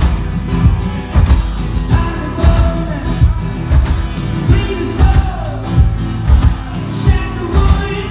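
Live acoustic rock song: strummed acoustic guitar and a jingling tambourine over a steady thumping beat, with a man singing.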